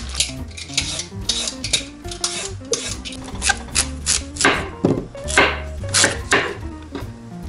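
Chef's knife slicing a daikon radish into thick rounds, each cut ending in a knock on the wooden cutting board, several cuts in the second half. Background music plays throughout.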